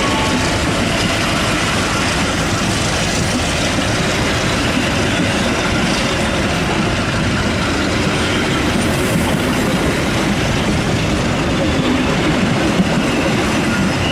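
Passenger train running along the track: a steady rumble of wheels on rails and the train's running noise.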